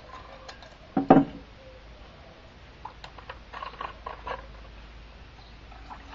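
Stainless steel camp mug set down on a wooden table with a loud knock about a second in, followed by a few light metallic clinks from its folding wire handles.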